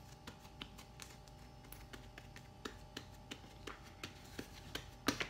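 Hands pressing a round of bread dough flat on a silicone baking mat to push out the air: faint, irregular soft taps of fingertips and palms, with a few louder ones near the end.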